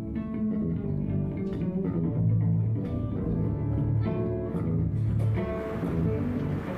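Live band music of plucked strings: a cello played pizzicato, held like a guitar, and an electric guitar picking notes over low sustained bass notes.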